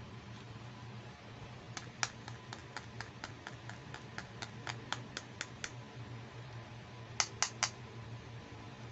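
Fingers clicking on a small plastic doll hairbrush: a run of even taps, about four a second, for a few seconds, then three louder clicks in quick succession near the end.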